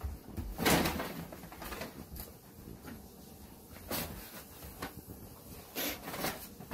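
Scattered soft rustles and light knocks, a few short ones spread through the few seconds: a paper bag over a dog's head crinkling and brushing against things as the dog bumps around.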